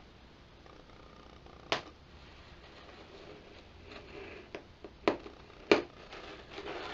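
Scalpel blade slitting the packing tape along the seam of a cardboard box: soft scraping and rasping, with three sharp clicks, two of them close together near the end.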